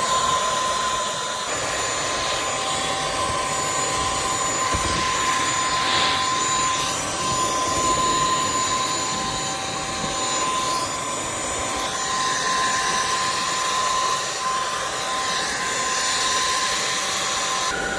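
Vacuum cleaner motor running steadily with a high, constant whine over the rush of suction.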